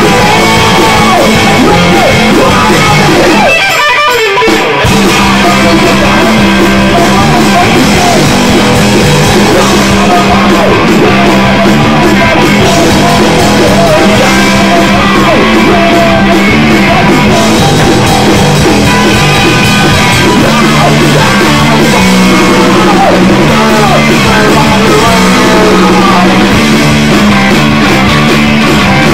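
Loud rock song with guitar and a drum kit. The low end drops out briefly about four seconds in, then the full band comes back.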